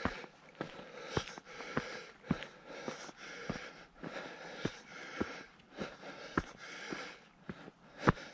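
A hiker's footsteps on a rocky trail: a sharp step a little under twice a second, at a steady walking pace, with the hiker's breathing between the steps.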